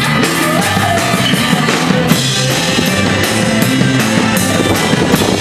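Loud rock music with a steady drum beat and guitar.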